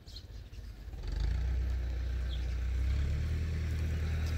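Tractor engine rumbling. It comes in abruptly about a second in, then runs steadily.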